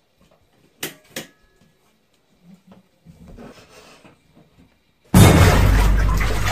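Two sharp clicks about a second in. Then, after a bath tap is turned, water suddenly gushes loudly from the tap into the bathtub about five seconds in.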